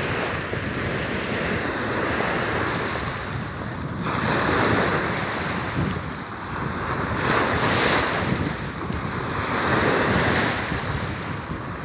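Choppy lake waves splashing and washing, with wind buffeting the microphone; the wash swells louder several times as waves break close by.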